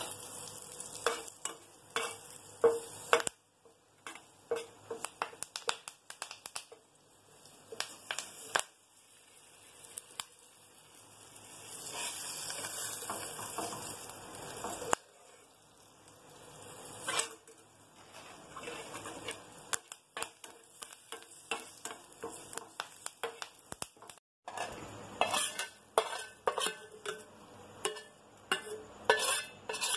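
Curry leaves frying in hot oil for a tempering. The sizzle swells into a steady hiss in the middle and stops suddenly, while a metal spoon stirs and clinks against the pan. Near the end comes a quick run of spoon scrapes and clinks as the tempering is scraped out of the pan.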